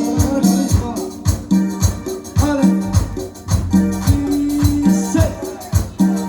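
Cumbia music: an instrumental passage with a bouncing bass line and a melody over a steady beat, with shaker percussion.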